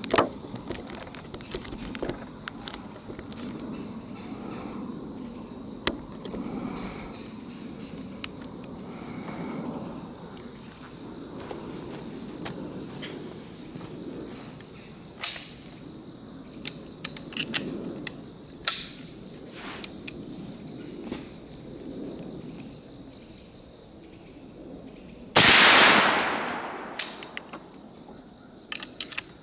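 An 1874 Enfield Martini-Henry Mk II rifle fires a single .577-450 paper-patched hand load about 25 seconds in: one loud shot with a ringing tail that dies away over a second or two. Before it, scattered clicks and knocks of the rifle being handled on its rest, over a steady high drone of insects.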